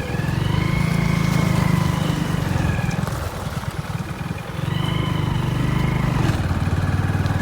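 A vehicle's engine running while on the move. It eases off for a moment about three seconds in, then picks up again.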